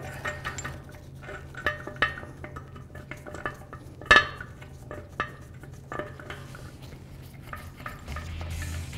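Steel nuts being threaded by hand onto flange bolts, finger tight: scattered small metallic clicks and clinks, with one sharper clink about four seconds in, over a steady low hum.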